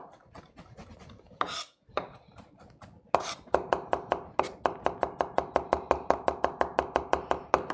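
Chef's knife mincing garlic on an end-grain wooden cutting board: a few scattered taps, then from about three seconds in a fast, even run of knife strikes on the wood, about six a second.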